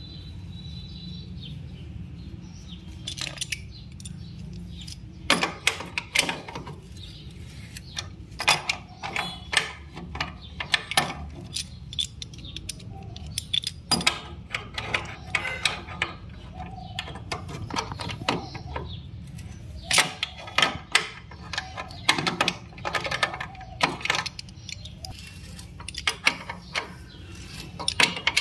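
Steel wrench clinking and scraping on a Yamaha RX100's exhaust pipe joint and clamp as the joint to the silencer is worked tight, a run of sharp irregular metallic clicks and knocks that starts a few seconds in.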